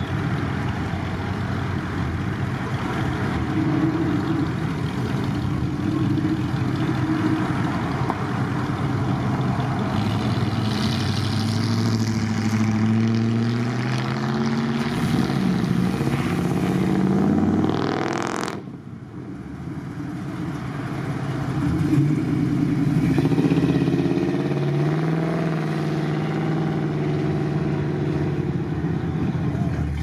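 Classic car engines running with road noise. One engine rises in pitch as the car accelerates, then the sound breaks off abruptly about two-thirds of the way in. Another engine picks up and climbs in pitch shortly after.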